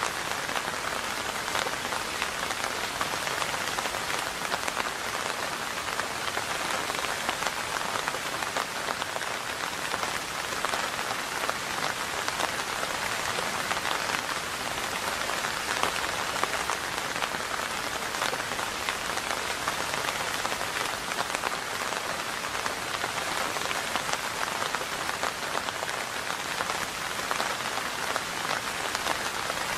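Steady rain falling, a dense, even patter of countless drops.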